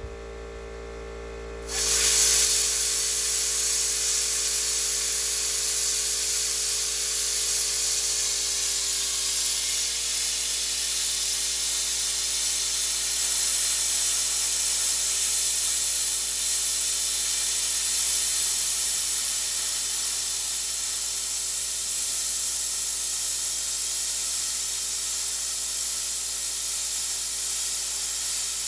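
Air plasma cutter starting up suddenly about two seconds in and then cutting steadily with a loud, even hiss, gouging a bevel into a crack in thick steel plate to prepare it for welding. A steady hum runs under it at first and fades out.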